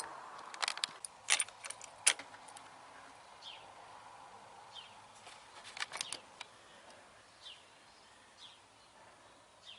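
BMW R1200GS front brake-lever micro-switch clicking as the lever is worked: several sharp clicks about a second in, another about two seconds in, and a short cluster about six seconds in. This is the switch whose failure to make contact keeps the brake light on.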